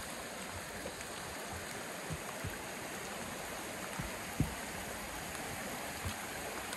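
A stream running steadily under a footbridge, with a few slow footsteps thudding on the wet bridge.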